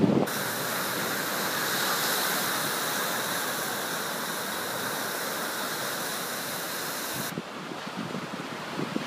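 Ocean surf breaking and washing up the beach, heard as a steady hiss that cuts off abruptly about seven seconds in. Wind then buffets the microphone in low gusts near the end.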